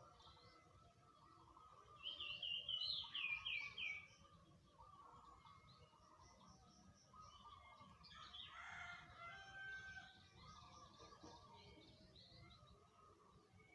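Sooty-headed bulbul calling: a loud run of short whistled notes stepping down in pitch about two seconds in. Fainter bird calls go on throughout, with a busier cluster of calls a little past the middle.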